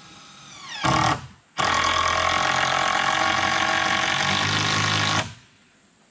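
Handheld power drill driving a screw into a 2x6 framing board: a short burst about a second in, then, after a brief pause, a steady run of about three and a half seconds that cuts off suddenly.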